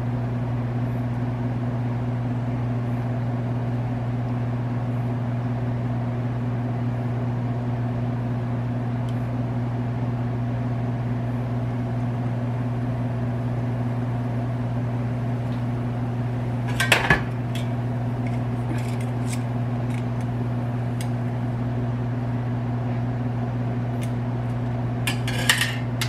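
A steady low hum runs throughout. A few sharp clinks of pots, pans or utensils come about two-thirds of the way in and again near the end.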